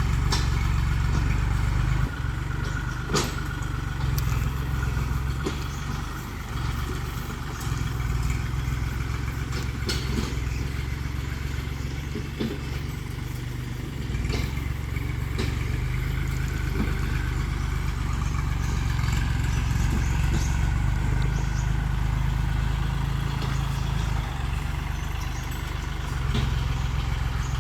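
Farm tractor engine running steadily as it ploughs soil, with sharp knocks and clanks every few seconds.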